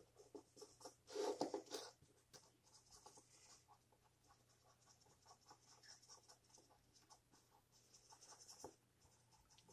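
Felt tip of a bullet-tip Expo dry-erase marker rubbing in short, rapid strokes over a die-cast toy car's painted body while colouring over a decal, faint throughout. The rubbing is louder for about a second, a second in, and again briefly near the end.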